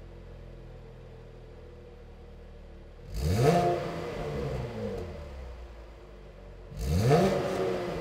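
2016+ Chevrolet Camaro's 3.6-litre LGX V6 on its stock exhaust, idling steadily, then free-revved twice. Each rev climbs quickly and sinks back toward idle over a couple of seconds.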